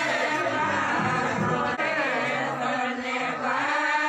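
Several voices singing together in a chant-like song, steady throughout.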